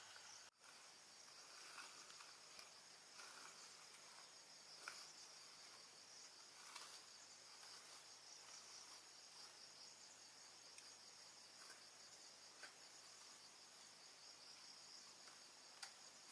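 Faint insect chorus, crickets trilling steadily in a high, finely pulsing band, with a few scattered faint ticks.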